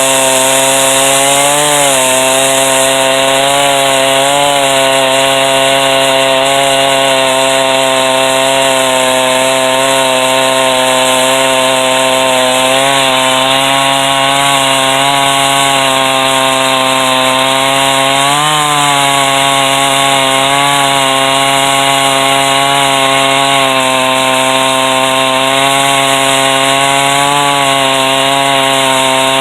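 Chainsaw on a chainsaw mill running at full throttle under load, ripping lengthwise through a white oak log. The engine note holds steady, with a few brief small rises in pitch.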